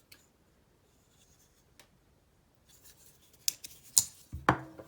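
Folding pocketknives being handled. After a quiet start there are a few sharp metallic clicks, then a short ringing clink near the end.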